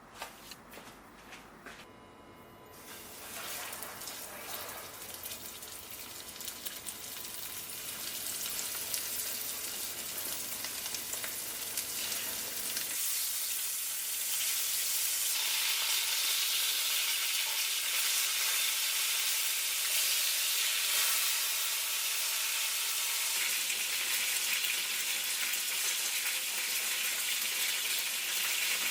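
Food frying in a pan: a few light clicks, then sizzling that starts about three seconds in and grows louder, holding steady from about halfway through.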